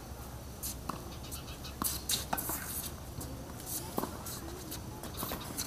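Tennis rally on a hard court: a string of short, sharp clicks and taps from rackets striking the ball, the ball bouncing, and shoes scuffing on the surface. They come thickest in the first two and a half seconds, with another about four seconds in and a few near the end.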